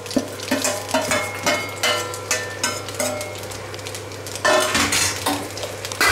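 Steel spoon scraping and clinking against a stainless steel pot as cooked rice is stirred, in short irregular strokes that get louder about four and a half seconds in.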